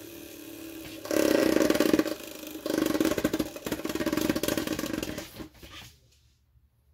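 Hasbro Pro Series Orb Aegis Beyblade spinning on a clear plastic stadium floor: a fast rattling whir that dips and comes back as the top wobbles, losing spin. It dies away about five and a half seconds in as the top comes to rest.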